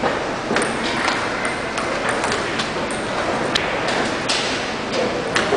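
Table tennis ball clicks: the celluloid ball struck by rubber-faced paddles and bouncing on the table during a rally. Sharp single clicks come at uneven intervals, over a steady hall noise.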